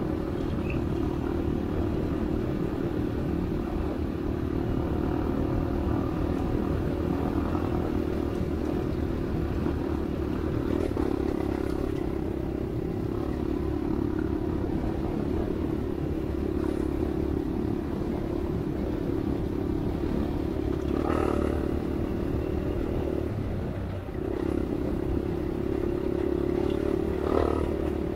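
Dirt bike engine running at a fairly steady throttle, heard from on board while riding over desert gravel, with a low wind rumble on the microphone. The engine note eases off briefly near the end, then picks up again.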